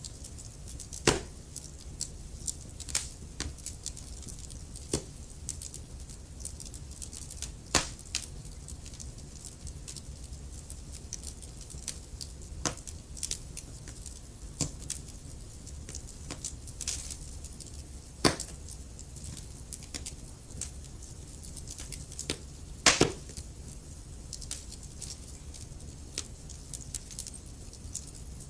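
Wood fire burning in a fireplace: a steady low rumble and hiss with scattered crackles and sharp pops from the burning logs, the loudest pops about a second in and around two-thirds of the way through.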